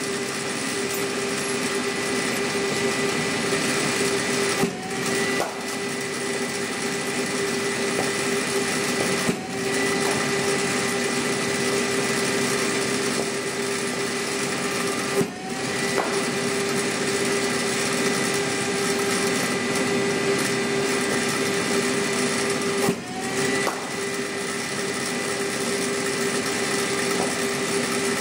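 A cricket bowling machine's spinning wheels hum steadily, with a sharp knock four times, about every five to six seconds, as a ball is fired. Each time, the motor note dips briefly and climbs back up.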